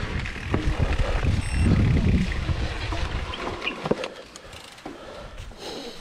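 Mountain bike riding over a rough, grassy trail, with wind buffeting the microphone and the bike rattling. The rumble dies down about three seconds in as the bike slows to a stop, leaving a few clicks and rattles.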